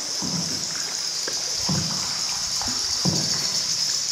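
A boat paddle dipping and pulling through the river water, three low splashing strokes about a second and a half apart, over a steady high-pitched hiss.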